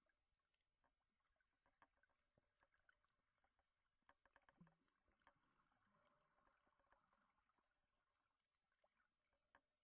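Near silence underwater, with faint scattered clicks.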